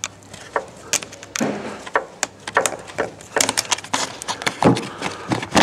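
Irregular clicks, taps and knocks of plastic trim being unclipped and handled: the covers over the upper control arms in a Tesla Model S front trunk being taken off.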